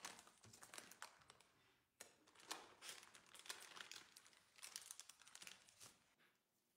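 Baking paper and thin disposable plastic gloves crinkling as a sheet of dough is lifted and folded over on the paper, in faint, irregular rustling spurts that stop about six seconds in.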